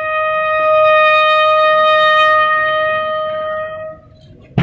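Bugle sounding one long held note of a ceremonial call for the dead. The note fades out about four seconds in.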